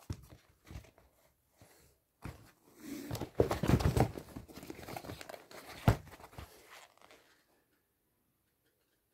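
Sneakers being handled and moved about close to a phone's microphone: rustling and rubbing with a few knocks, busiest in the middle stretch and dying away near the end.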